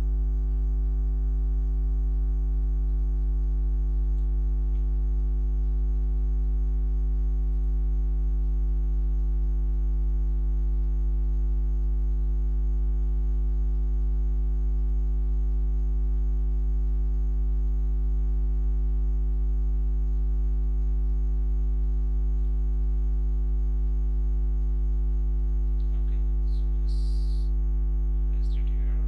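Steady electrical mains hum with many overtones, at an unchanging level. Near the end there is a short, faint high-pitched blip.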